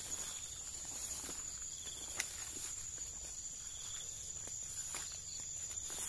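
Steady high-pitched insect drone from the field, with soft footsteps and rustling through grass and cane leaves and one sharp click about two seconds in.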